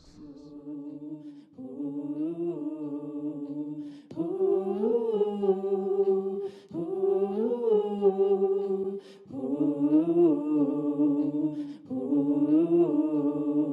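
Wordless a cappella humming with no drums, in sustained pitched phrases about two and a half seconds long, each followed by a short break.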